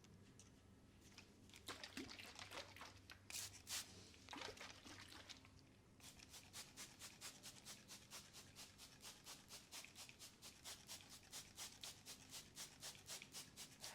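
Faint wet sounds of oiled hands massaging skin: a few irregular strokes, then from about halfway in a quick, even rhythm of short strokes, about five a second.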